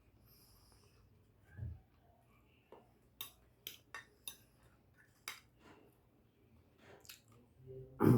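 Cutlery clinking and scraping against a dinner plate while a meal is eaten, in a few short sharp clicks, with a dull low knock about a second and a half in and a louder low sound at the very end.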